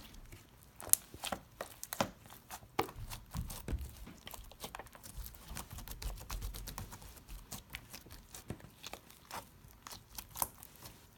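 Fingers poking, squeezing and stretching slime: a run of irregular sticky clicks, pops and crackles.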